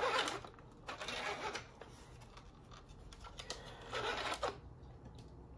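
Plastic scraping and rasping of a 3D-printed foam-dart revolver rifle's priming action being worked by hand, in three short bursts: at the start, about a second in, and about four seconds in. The prototype's priming is rough, and the sear is not catching cleanly.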